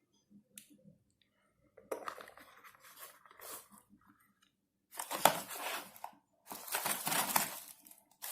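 Product packaging being handled, crinkling and rustling in several bursts, the loudest about five seconds in.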